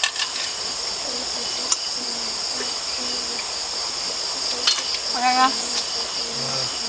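Chorus of night insects, a steady high-pitched trilling that does not let up. A few short clicks sound over it, and a voice speaks briefly about five seconds in.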